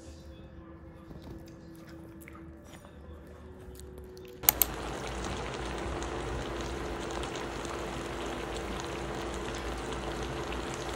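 A pan of braised aged kimchi with pork back ribs bubbling at a steady simmer. It starts sharply about four and a half seconds in, just after two quick clicks. Before that there are only faint scattered clicks.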